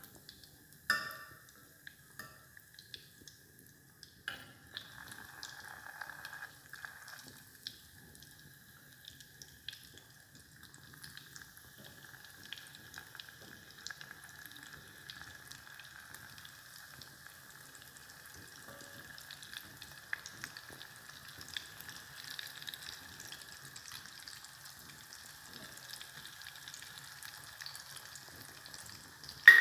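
Sausage rolls deep-frying in a pot of hot oil, sizzling steadily, with a faint steady high tone running under the sizzle. A metal slotted spoon knocks against the pot about a second in, again a few seconds later, and loudest near the end.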